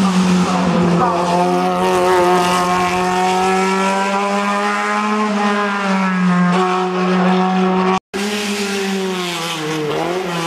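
Racing touring car's engine running hard at high revs while climbing, its note holding with slight sags and rises. The sound cuts out for an instant near the end, then a race engine note comes back, dipping and climbing again.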